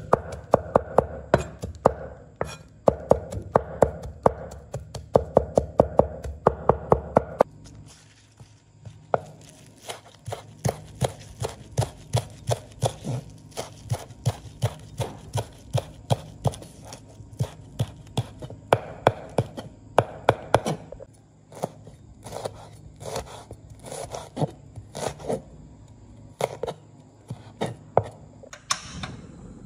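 A cleaver chopping fast on a wooden chopping board, cutting garlic, spring onions and red chillies in quick runs of knife strikes. The first seven seconds or so are heavier and louder; after that the chopping turns lighter and quicker.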